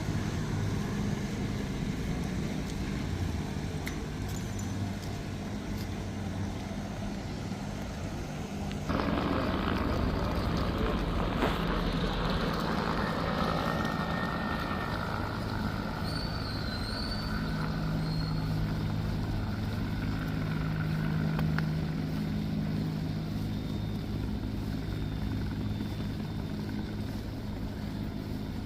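Street traffic: vehicle engines humming steadily, growing suddenly louder and fuller about nine seconds in, then a steady engine tone from a large vehicle nearby.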